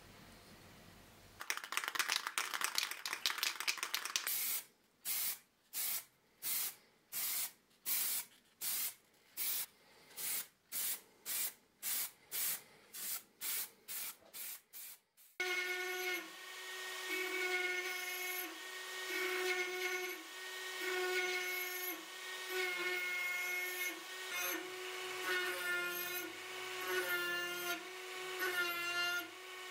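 Spray paint hissing as a blade is coated: one continuous spray of about three seconds, then short even bursts about twice a second for some ten seconds. From about halfway through, background music with sustained instrumental notes takes over.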